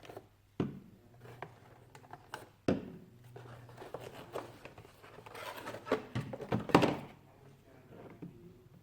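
Objects being handled and set down on a hard surface: a sharp thunk about half a second in, another near three seconds, then a busier spell of knocking and rustling in the second half.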